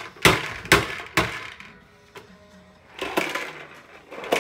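Plastic push-along toy vacuum clattering as it is pushed over tile, the balls inside its dome rattling and popping in short sharp bursts: three quick bursts in the first second and a half, then a cluster about three seconds in and one more near the end.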